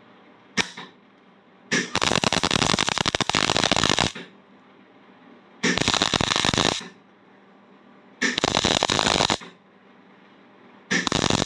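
MIG welder arc crackling in four bursts, building up weld on the top of a broken stud so it can be gripped and turned out. The first burst lasts about two seconds and the others about a second each, with a brief tap of the arc about half a second in.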